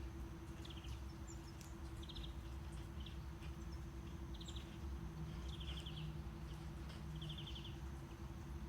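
Steady low brown-noise rumble with a faint steady hum, overlaid with short, rapidly pulsed chirps from a nature-sounds background, repeating about once a second.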